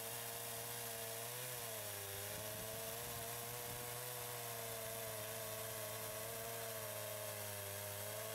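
Stihl MS 170 two-stroke gasoline chainsaw running at full throttle under load as its chain cuts through a stack of softwood 4x4s. The engine note holds steady, sagging slightly in pitch about two seconds in and then recovering.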